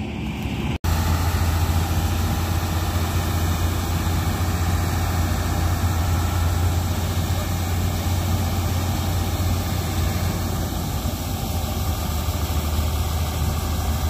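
A New Holland 8070 combine harvester's diesel engine running steadily with a deep hum while its unloading auger pours threshed rice into a tractor trolley. The sound starts after a short break about a second in.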